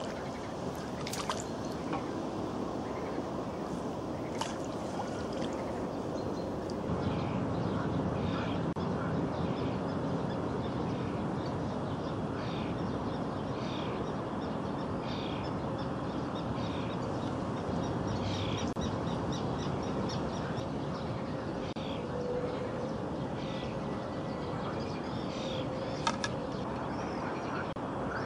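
Steady outdoor hiss with a run of short animal calls repeated about once a second, and a few sharp clicks.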